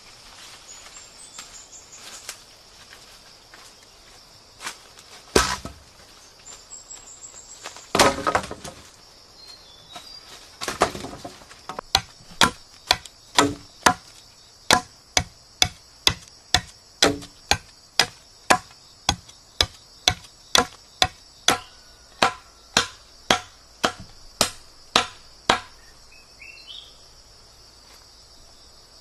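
Machete chopping into a green wooden pole to sharpen its end to a stake point: a steady run of sharp strikes, about two a second, for over ten seconds, after a few separate heavier knocks earlier. Insects buzz steadily and high-pitched behind it.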